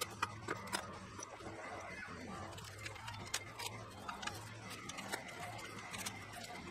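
Scattered light clicks and rustles of a sawmill part being unwrapped from packing paper, over a low steady hum.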